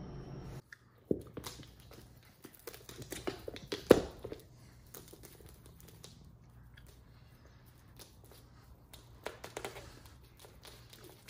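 Scattered light taps, rustles and crinkles, with a sharper knock about four seconds in, over a faint low hum.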